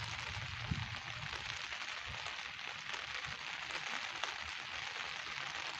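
Steady rainfall: an even hiss of rain with scattered sharper drop ticks. A low rumble sits under it in the first second or so.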